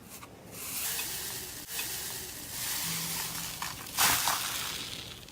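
Slime being squeezed and stretched by hand, making a crackling, sizzle-like hiss that swells and fades, with a sharper crackle about four seconds in.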